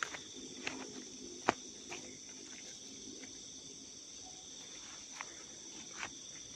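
Night insect chorus, a steady high-pitched trill at two pitches, with a few sharp clicks, the loudest about a second and a half in.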